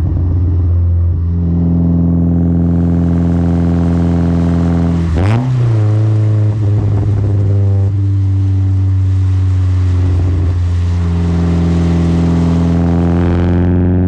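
Mazda MX-5's four-cylinder engine running loud through an exhaust with the baffle removed, heard right at the tailpipe while driving at steady revs. About five seconds in the revs jump quickly with a short sharp pop, and the engine then holds a steady, slightly higher note.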